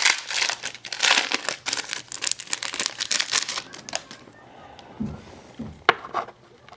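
Foil trading-card pack wrapper crinkling and tearing as a pack is opened, a dense crackle for about four seconds, followed by a few soft handling taps and a click.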